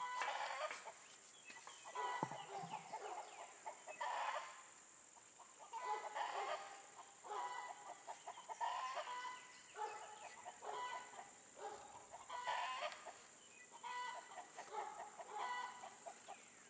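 Chickens clucking, in short calls that come every second or two.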